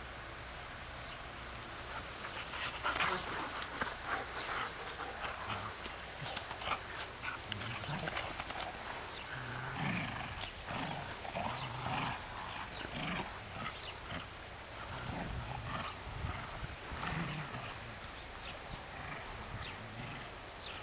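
Dogs growling in play while tugging a rope between them, short growls coming one after another.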